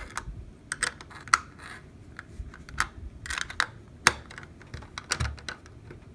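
Two steel 5/16-inch wrenches clicking and clinking against each other and a bulkhead connector nut as the nut is tightened on the case wall: a string of sharp, irregular clicks.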